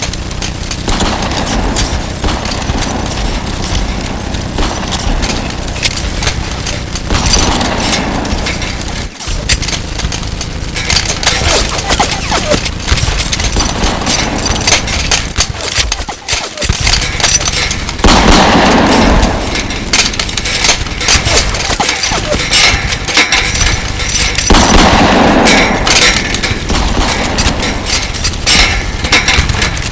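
Gunfire sound effect: a continuous barrage of rapid shots and automatic-fire bursts, growing louder and denser in two stretches in the second half.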